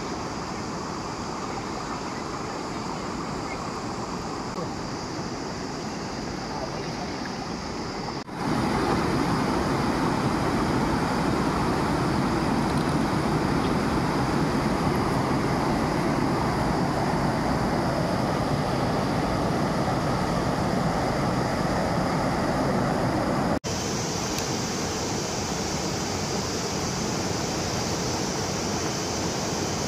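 Fast river rapids rushing over rocks: a steady wash of white water that gets louder about eight seconds in and drops back a little near the end, changing abruptly each time.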